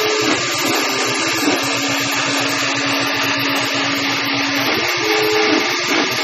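Dual-extruder desktop 3D printer printing, its stepper motors whining in steady tones that change pitch and start and stop as the print head changes moves, over a steady hiss of its fans.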